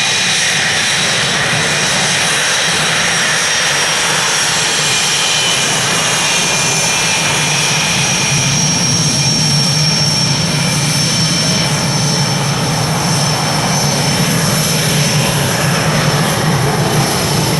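Jet aircraft engine running steadily, a loud rush with a high turbine whine whose pitch sinks slowly.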